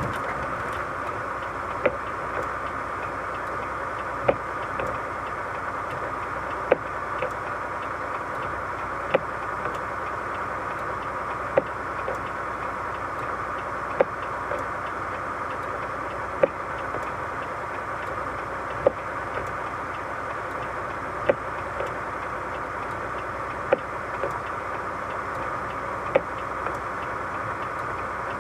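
Steady hum of a moving vehicle. A sharp tick comes about every two and a half seconds, each followed by a fainter one.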